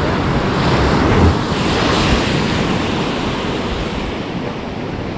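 Ocean surf washing against the shore: a wave swells and breaks about a second in, then eases to a steady wash, with wind buffeting the microphone.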